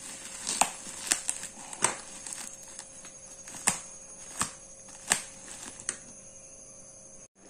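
Black bubble-wrap parcel and its packing tape crinkling and crackling as fingers pick and peel at the wrapping, in sharp irregular clicks.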